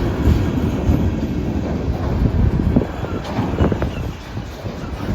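Freight cars of a slow-moving manifest train rolling past, a steady low rumble of wheels on rail with a few sharp clanks about three to four seconds in, heard from inside a vehicle.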